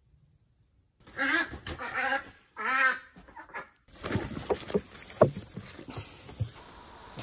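A female runner duck gives three loud, harsh quacks about a second in as she is cornered behind a board. Then comes a stretch of scuffling, with straw rustling and sharp knocks as she is grabbed.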